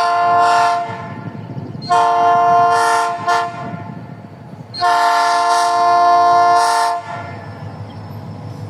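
Diesel freight locomotive's multi-tone air horn sounding three long blasts over the low rumble of the passing train. The first blast is already sounding and ends about a second in, the second comes about two seconds in, and the longest comes about five seconds in.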